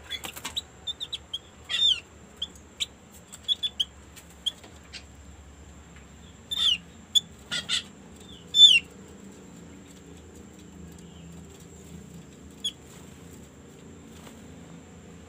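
Female opyor (opior) bird calling: a run of short, sharp chirps and quick downslurred notes, busiest over the first nine seconds with the loudest call at the end of that run, then a single note near the end. This is the kind of female call used to draw a male opyor into answering.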